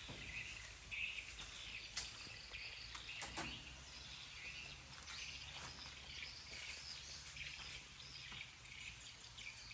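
Faint outdoor ambience with high, uneven chirping throughout and a few short knocks about two and three seconds in.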